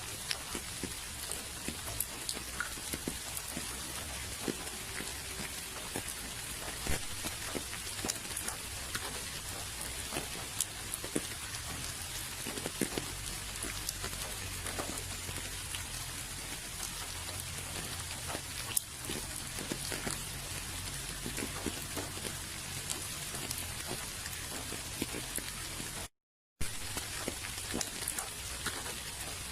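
Steady rain falling, with many individual drops ticking distinctly over the even hiss. About 26 seconds in the sound cuts out to silence for under half a second, then resumes.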